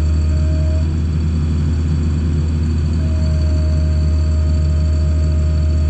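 Farm tractor engine running steadily with a deep, even drone, and a faint steady whine over it that drops out about a second in and comes back about three seconds in.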